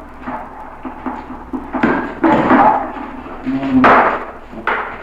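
Goats clashing horns, several sharp knocks, with a low, drawn-out threat call between them. These are competitors being driven from a food supply.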